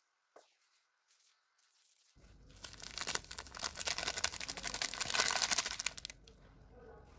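Crinkling and rustling from about two seconds in to about six seconds in, a dense run of rapid small crackles, loudest in the middle.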